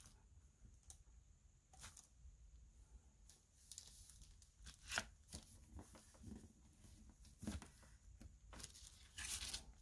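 Faint handling sounds of a clear acrylic text stamp being set down on a card and pressed by hand: a few soft taps and paper rustles. The sharpest tap comes about five seconds in.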